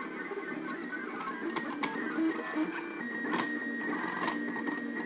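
Stepper motors of a DIY wooden-framed 3D printer running during a print, whining in short steady tones that keep jumping in pitch as the print head and bed change speed and direction. A few sharp clicks are mixed in.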